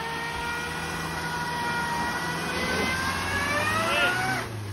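Hyundai Venue SUV's engine revving hard as the car strains to pull out of deep mud. Its whining pitch climbs slowly, then drops away abruptly near the end.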